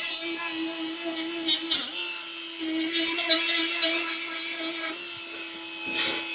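Small electric buffer running at high speed on welded steel, a steady whine with gritty scraping over it. Its pitch dips briefly about two seconds in and again near the end.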